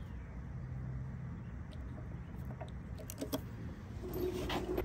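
Small metallic clicks from snap ring pliers working a snap ring on a T56 transmission mainshaft, then a short metallic rattle near the end as metal parts clink together, over a steady low hum.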